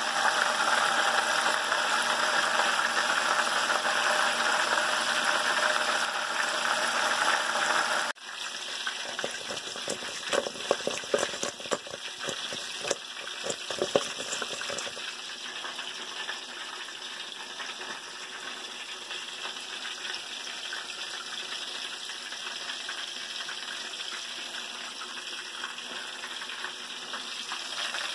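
Hot oil sizzling steadily as food deep-fries in a square pan. About eight seconds in the sound drops abruptly. For the next several seconds there is irregular clatter from food being tossed in a stainless steel bowl, and then the frying carries on more quietly.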